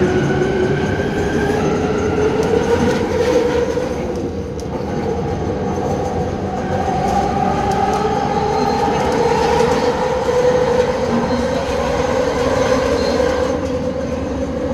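Bombardier Innovia Metro 300 train heard from inside the car as it accelerates away from a station. Its linear-induction propulsion whines, rising in pitch for about the first ten seconds and then levelling off, over a steady rumble of wheels on the track.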